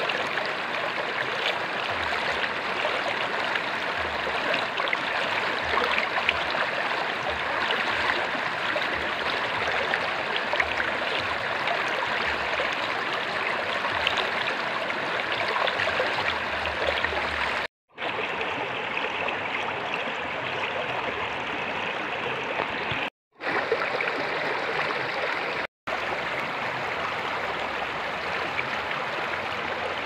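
Shallow stream rushing steadily over stones, with hand splashes as water is scooped and poured. The sound cuts out completely three times for a moment in the second half.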